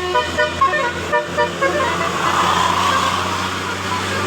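Telolet basuri bus horn playing a quick tune of stepping notes, with the bus engine running as a steady low hum underneath. The tune stops about a second and a half in and a rush of noise follows.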